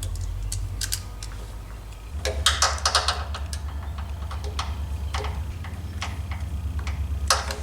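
Small metal carburetor parts clicking and knocking as they are worked and pushed together by hand on a Gurtner moped carburetor, in irregular bunches of short clicks. A steady low hum runs underneath.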